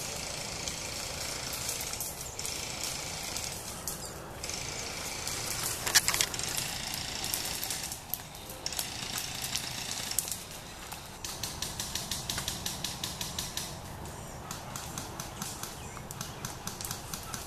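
Dry leaf litter and brush rustling and crackling as someone moves through woodland undergrowth, with footsteps crunching in the leaves and a sharp crack about six seconds in.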